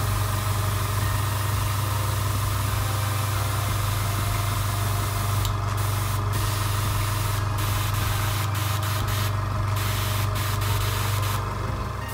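Airbrush hissing steadily as compressed air blows through it with the trigger held down, the air cutting off briefly several times in the second half. Under it the Fengda FD186 airbrush compressor runs with a steady low hum.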